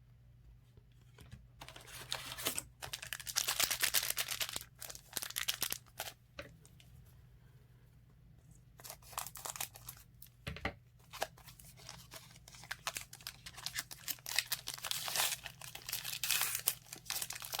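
Trading-card pack wrapper being torn open and crinkled in the hands. The rustling comes in two stretches with a quiet gap of a couple of seconds between them, and there is one sharp knock midway.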